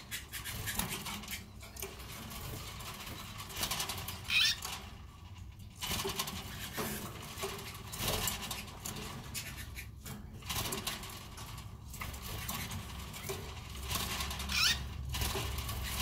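Red factor canaries moving about in a wire cage: light rustling, taps and clicks of hopping and wing flutters, with a short chirp twice.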